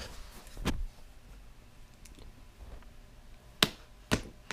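Cardboard laptop packaging being handled by hand: sharp clicks and knocks, one a little under a second in and two close together near the end, with faint rustling between.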